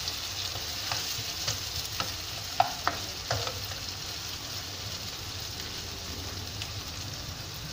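Sliced onion, garlic and diced potato sizzling in oil in a nonstick wok, stirred with a plastic ladle. The ladle knocks and scrapes against the pan several times in the first half, the sharpest knock about two and a half seconds in.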